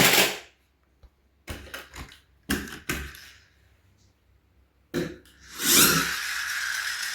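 Plastic toy vehicles being handled and set down: a few separate knocks and clicks, then from about six seconds in a steady rushing noise.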